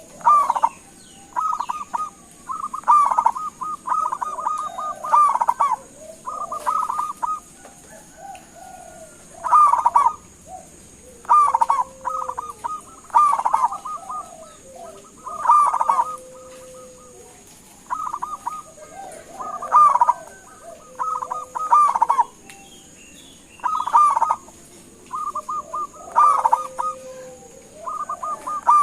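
Zebra dove (perkutut) singing: repeated phrases of rapid staccato cooing notes, a new phrase every two seconds or so.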